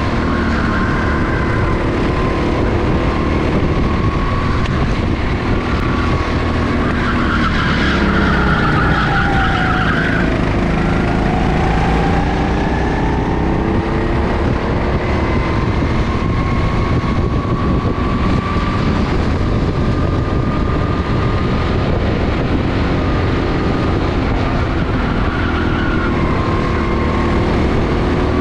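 Go-kart engine running hard, heard from on board the kart. Its pitch falls from about eight seconds in and climbs again from about eleven seconds.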